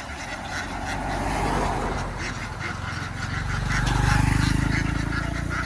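A large flock of ducks quacking and chattering continuously, over a motor vehicle's engine running low; the engine's rumble swells to its loudest about four seconds in.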